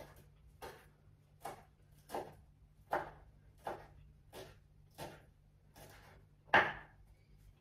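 Kitchen knife chopping fresh mint leaves on a wooden cutting board, mincing them fine. About ten even knife strikes, a little under one a second, with one louder strike near the end.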